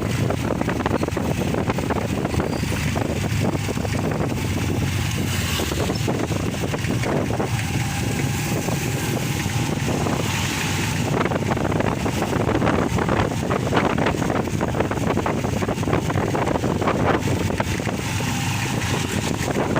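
Steady wind buffeting the microphone with a low rumble, with many small ticks and taps throughout.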